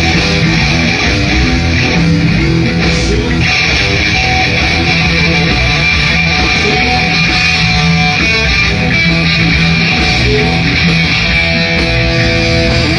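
Live instrumental music led by electric guitar, loud and continuous.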